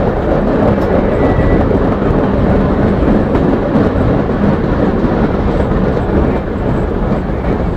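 Passenger train running on the rails: a steady, loud low rumble of wheels on track with faint scattered clicks.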